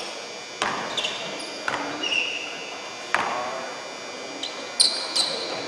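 A basketball bouncing on a hardwood gym floor four times at uneven intervals, each bounce echoing in the hall. Near the end come a few short, high sneaker squeaks on the court.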